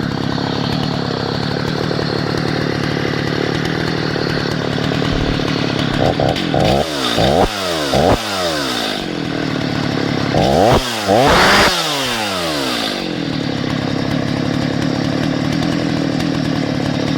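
Stihl MS290 (029) two-stroke chainsaw idling, then blipped up to high revs four times in quick succession about six to eight seconds in and twice more around eleven seconds, the last held for about a second, before settling back to idle. The motor is freshly rebuilt with a new piston and rings and is still tight.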